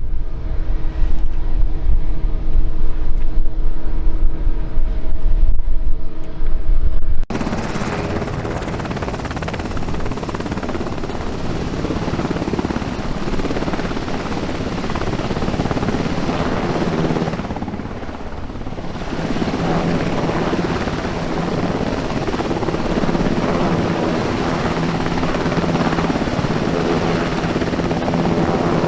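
Wind buffeting the microphone with a low rumble, then after an abrupt cut about seven seconds in, loud, steady aircraft engine noise that briefly dips midway.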